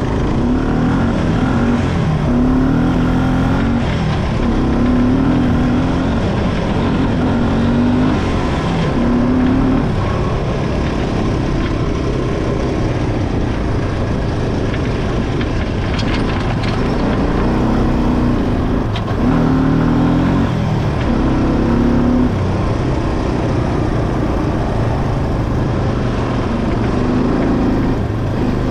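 ATV engine running under changing throttle while riding off road, its pitch rising and falling every second or two over a steady rough noise.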